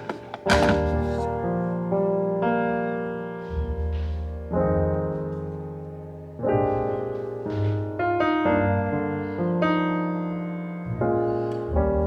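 Background piano music: soft, slow chords and notes that ring and fade, changing every second or two. A couple of sharp clicks sound right at the start.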